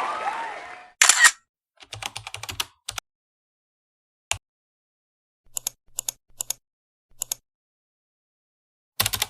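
Crowd noise fading out in the first second. It is followed by short, sharp clicks in small clusters, like keyboard typing, with dead silence between the groups.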